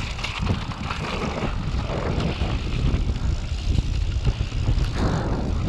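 Mondraker Chaser e-mountain bike rolling fast downhill on a dirt trail: wind rushing over the microphone and a steady tyre rumble, with small knocks and rattles from the bike over bumps.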